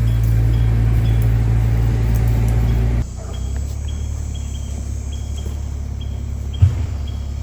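Engine of heavy equipment backfilling a trench, running steadily with a deep hum; about three seconds in the sound drops suddenly to a quieter engine drone, with insects chirping in an even rhythm.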